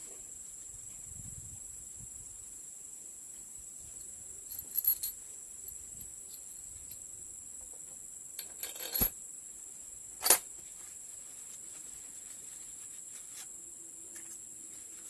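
A few light metallic clinks and knocks of parts being handled during engine reassembly: two small clusters, then one sharp, louder clink about ten seconds in. A steady high insect chirring runs underneath.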